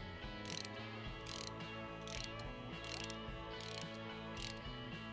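Hand ratchet clicking in short runs about every three-quarters of a second, backing out the cam cover screws on a Harley-Davidson Sportster engine, over background music.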